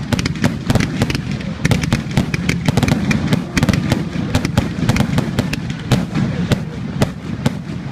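Fireworks going off in quick succession: a dense stream of sharp cracks and bangs, several a second, over a continuous low rumble.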